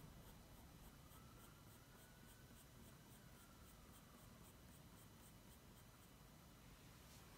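Faint scratching of a coloured pencil on drawing paper in quick, even, short strokes, about four a second.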